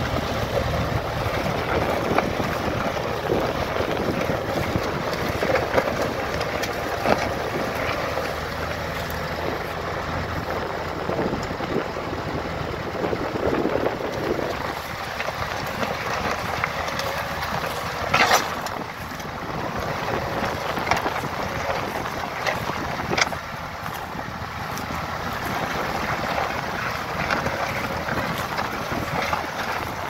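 Tractor engine running steadily under load while pulling a two-furrow mounted plough through stubble, with wind on the microphone. A few sharp knocks cut through, the loudest about eighteen seconds in.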